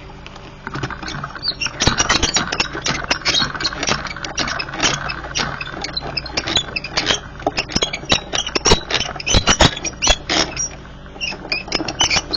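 Adhesive tape pulled off a roll with a crackling rip, then pressed down and handled with quick clicks and snaps, taping a metal cutting die to cardstock to hold it in place.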